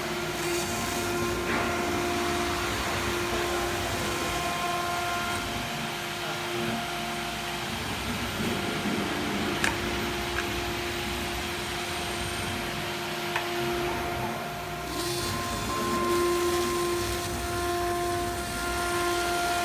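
CNC router running: a steady spindle whine with a hiss of machine noise, and a couple of brief sharp ticks partway through.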